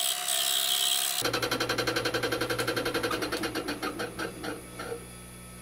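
Metal lathe turning a wooden hammer handle mounted off-centre to give it an oval profile. A steady hiss for about the first second gives way to a rapid, even ticking of about eight strokes a second, which fades out near the end.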